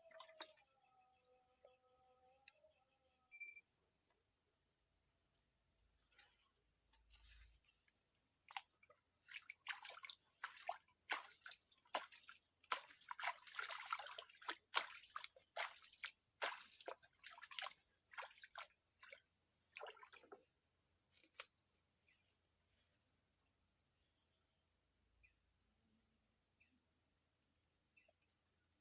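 Steady high-pitched chorus of crickets, with a run of irregular short, light clicks and patters from about six seconds in to about twenty seconds, densest in the middle.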